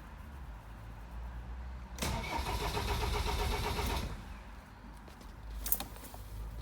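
Land Rover Defender 2.4 TDCi Puma diesel engine cranking on the starter motor with a rhythmic churn for about two seconds, then stopping without firing; a short sharp click follows near the end. The failure to start is the sign of a faulty camshaft position sensor.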